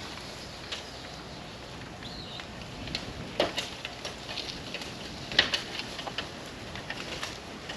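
A scatter of short, sharp knocks and clatters, the loudest about three and a half and five and a half seconds in, over steady outdoor background noise.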